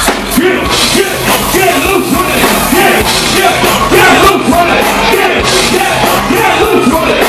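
Loud live concert music over a club sound system, with yelled vocals over the backing.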